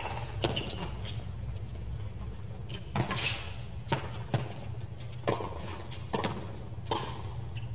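Tennis rally on a hard court: a string of sharp pops from the ball being struck by rackets and bouncing on the court, about one a second, over a steady low hum of the stadium.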